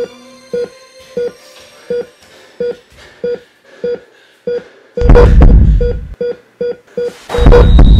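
Electronic beeps in an even rhythm, about one and a half a second, quickening in the last few seconds, cut through twice by a loud burst of noise about a second long. A high steady tone starts near the end.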